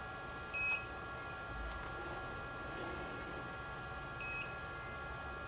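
Two short electronic beeps about three and a half seconds apart from the coordinate measuring machine, each marking a probe hit as the touch-trigger stylus takes a point on the part. A steady faint whine from the machine runs underneath.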